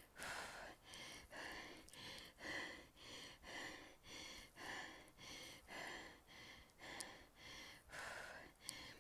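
A woman panting hard, with quick heavy breaths about two a second: she is exhausted and out of breath from climbing a steep mountain trail.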